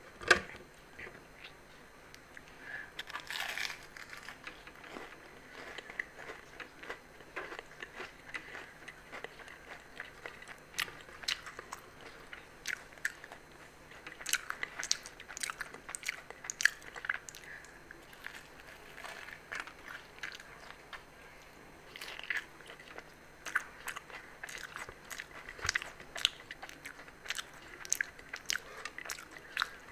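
Eating deep-fried aloo samosas: the crisp pastry crunching and tearing as it is broken and bitten, and chewing, with sharp crackles and clicks all through. The sharpest crack comes right at the start.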